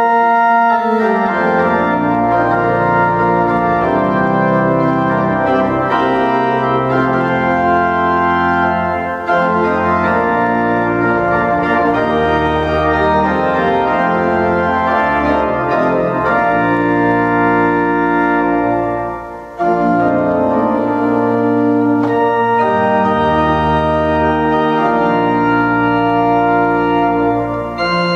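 Church choir pipe organ playing a Swiss folk-music tune in sustained chords over deep pedal bass notes, with a short break between phrases about two-thirds of the way through.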